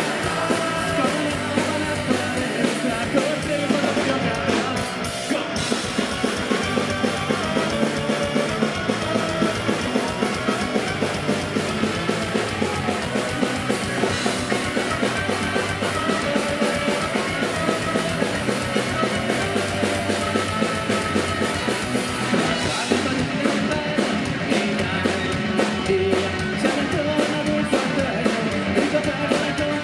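Live ska-punk band playing at full tilt: trumpet over electric guitars, bass and a drum kit keeping a fast, steady beat.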